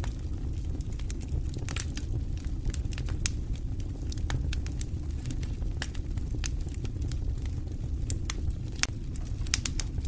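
Wood fire burning in a stone fireplace: a steady low rumble of the flames with irregular sharp crackles and pops from the burning logs.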